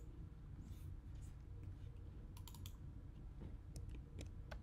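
Faint, scattered clicks of a computer mouse and keyboard being used, with a few clicks close together about halfway through, over a low steady hum.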